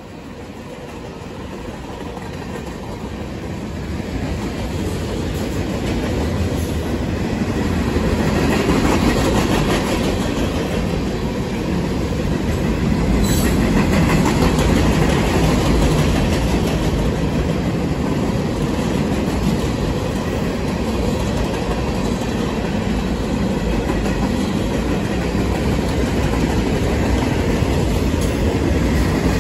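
Cars of a freight train rolling past at speed: a steady rumble of steel wheels on the rail, with clacking over the joints. It grows louder over the first several seconds, then holds.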